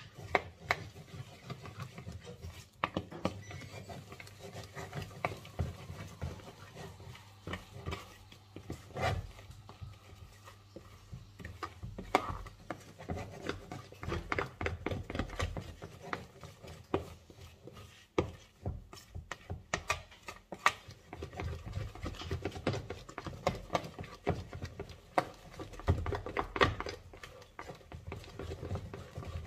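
A metal fork stirring thick cake batter in a plastic mixing bowl, with repeated irregular scraping and clicking of the fork against the bowl as the flour is worked into the eggs and sugar.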